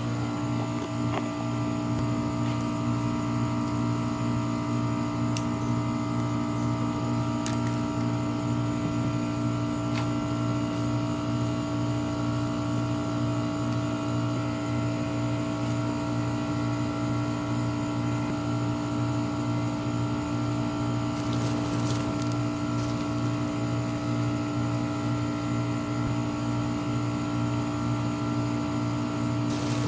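An engine or motor running steadily at one unchanging pitch, with a strong low hum.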